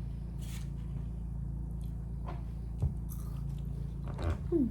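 Someone biting and chewing a soft cookie close to the microphone, with a small knock about three seconds in and a short falling "mm" near the end, over a steady low hum.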